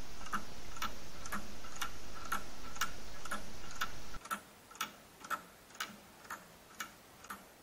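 3D-printed plastic mechanical clock ticking steadily, its escapement giving about two ticks a second. A steady background hiss drops away about four seconds in, leaving the ticks alone.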